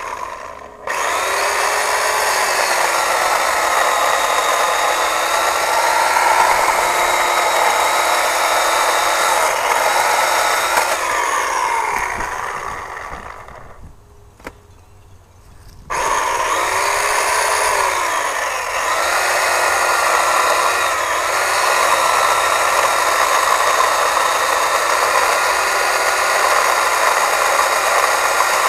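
McCulloch Electramac 35 ES electric chainsaw (230 V, 1.4 kW motor) running and cutting through logs, its motor whine sagging in pitch as the chain bites into the wood. It runs down to a stop about twelve seconds in, with a click, and starts up again about sixteen seconds in to cut on.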